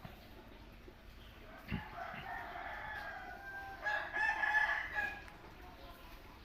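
A bird's long crowing call. It starts about two seconds in after a soft thump, swells to its loudest around four to five seconds in, and stops a little after five seconds.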